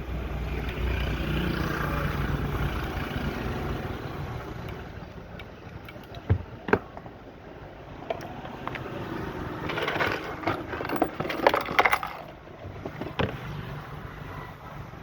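A small electric motor, likely the water pump's, runs with a steady low hum for the first few seconds and then fades away. From about six seconds in come a series of sharp metal knocks and clinks, several bunched together near the middle.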